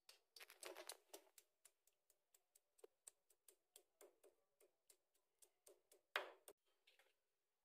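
Round grinding stone knocking on a stone slab as it crushes food: a run of light, quick knocks, about three or four a second, with a louder knock about six seconds in.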